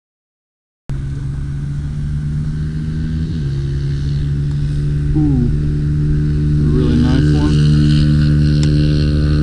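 Silence for about the first second, then a motor engine running steadily, its pitch dipping briefly a few times.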